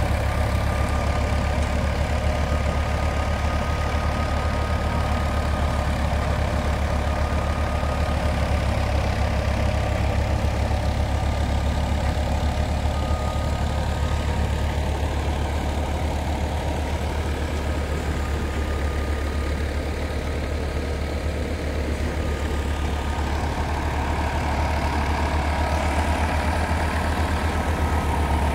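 Fiat 480 tractor's diesel engine running steadily, powering a thresher that is being fed sheaves of cut crop, the engine and the threshing machinery forming one continuous mechanical drone.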